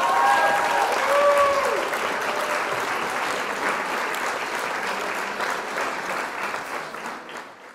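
Audience applause, with a few gliding whistles in the first two seconds; it fades out at the end.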